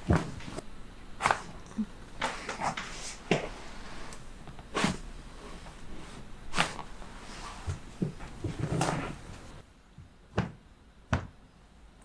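Neck joints cracking during chiropractic adjustments: a series of short, sharp pops at uneven spacing, about a dozen, a few of them loud.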